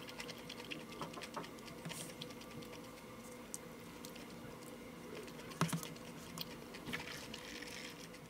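Small irregular clicks and taps of a plastic spoon against a paper cup of corn salad, with light eating sounds, the loudest click a little past halfway. A faint steady hum runs underneath.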